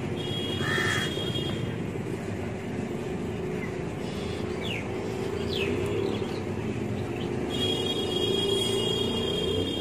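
Steady low rumble of outdoor background noise, like a running vehicle engine, with a few short bird chirps over it.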